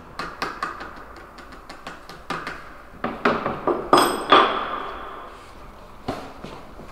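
Irregular sharp knocks and taps, a dozen or more, bunched most closely about three to four and a half seconds in. One louder metallic clink about four seconds in rings briefly.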